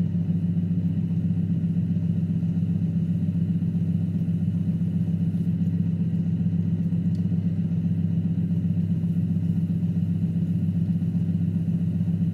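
Electric potter's wheel motor running at a steady speed, giving an even low hum while clay is thrown on it.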